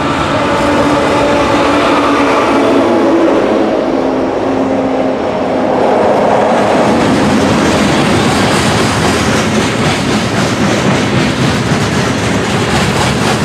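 Union Pacific diesel locomotives passing close by, their engines droning steadily. About six seconds in the sound turns into the rolling rumble and clickety-clack of a string of hopper cars going past on steel wheels.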